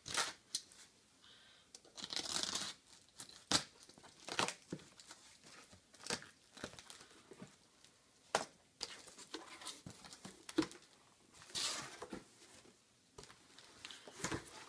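A cardboard package being opened by hand: tape tearing and cardboard and paper packing rustling and crinkling in irregular bursts, with a few short sharp clicks.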